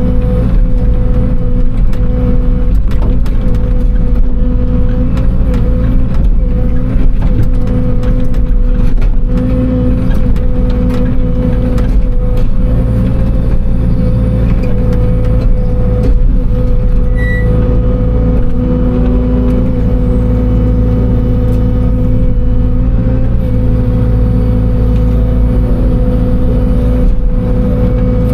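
CAT 305 mini excavator's diesel engine running steadily at working speed while it moves rock, with scattered knocks and clatter, mostly in the first half.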